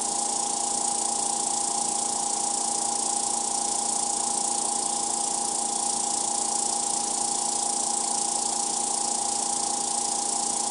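Small air compressor running steadily: a constant motor hum with an even hiss over it.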